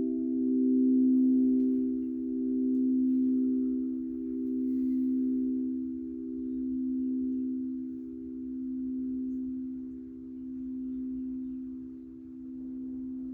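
Singing bowl ringing on and slowly fading, its tone wavering in loudness about every two seconds.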